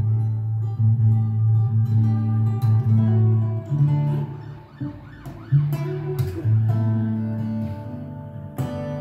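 Solo acoustic guitar played fingerstyle: a low bass note rings under picked chord notes, broken by a few sharp percussive hits.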